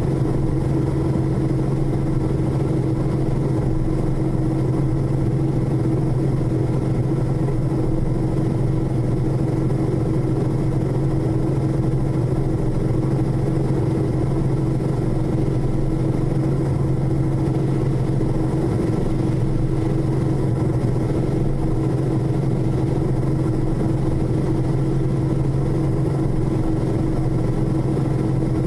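Robinson R44 helicopter in steady forward flight: the main rotor and six-cylinder Lycoming piston engine make a loud, unchanging drone with a low hum and a steady higher tone above it.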